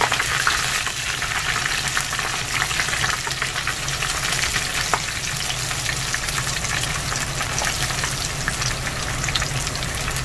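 Battered shrimp tempura deep-frying in a rapeseed and sesame oil blend: a dense, steady sizzle with fine crackling as the batter cooks.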